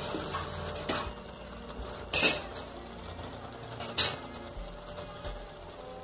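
A metal spoon and steel pot of boiled dal clinking as the dal is stirred and handled, with three sharp clinks, the loudest about two seconds in.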